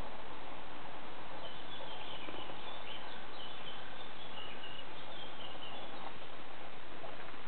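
Small birds twittering in short, high chirps over a steady hiss of outdoor background noise; the chirps come through the middle of the stretch and fade out near the end.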